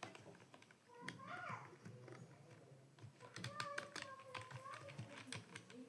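Computer keyboard keys clicking in quick, uneven runs: someone touch-typing.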